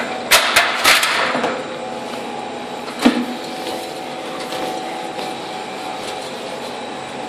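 Several sharp knocks and clanks in the first second and another about three seconds in, from someone climbing through a passage among metal rails and pipes. Under them runs a steady mechanical hum, like ventilation plant.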